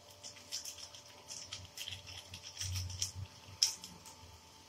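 Irregular light clicks and taps of a spoon against a spice packet while garam masala powder is sprinkled over masala frying in a non-stick kadai, with one sharper clack about a second before the end.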